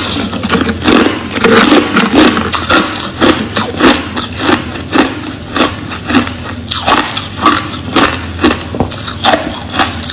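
Crushed ice being bitten and chewed close to the microphone: a steady run of crisp crunches, about two a second.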